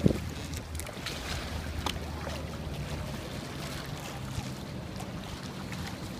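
Water splashing and rushing along the hull of an outrigger sailboat under way, with wind rumbling on the microphone.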